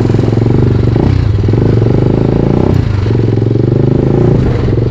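Sport motorcycle engine running as the bike is ridden on a rough road, its note dipping and picking back up about a second in and again near three seconds in, as with a throttle change or gear shift.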